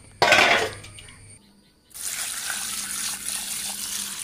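A short loud burst of noise just after the start, then, from about two seconds in, a steady stream of tap water pouring into an aluminium basin of cut fish pieces to rinse them.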